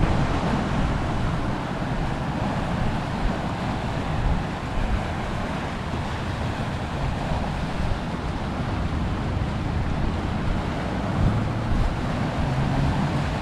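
Sea surf washing and breaking over shoreline rocks, with wind buffeting the microphone in a steady low rumble.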